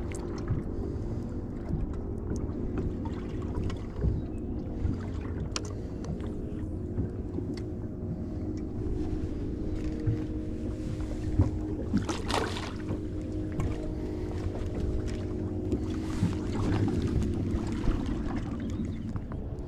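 Wind and water noise around a fishing boat over a steady low hum, with scattered knocks from handling gear. A brief splash comes about halfway through as a released fish goes back into the water.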